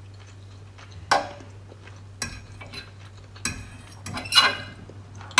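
A metal fork clinking and scraping against a baking dish as food is picked from it. There are about five sharp clinks, the loudest about a second in and about four seconds in.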